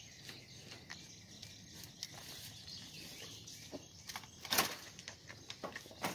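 Boer goats nibbling and crunching treats from a hand at a wire fence: scattered small crunches and clicks over a faint steady background, with one louder, brief crunching noise about four and a half seconds in.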